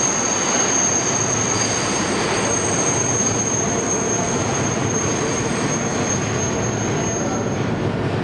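Kawasaki R62 subway train departing, with steady rolling noise and a high, thin wheel squeal that fades out near the end.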